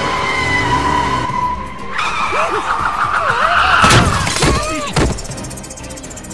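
Cartoon car sound effects over background music: a car accelerating with tyres skidding, then a crash about four seconds in and a second hit about a second later.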